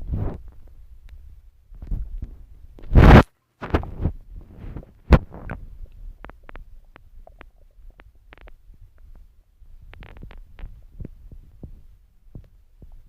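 Stomach growling: irregular low gurgles and a run of short pops and clicks. About three seconds in comes a loud half-second burst of noise, the loudest thing in the stretch.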